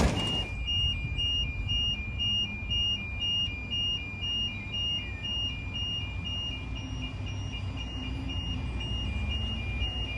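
Level crossing warning alarm sounding, an electronic two-tone ring alternating between a higher and a lower pitch about twice a second, which signals that a train is approaching.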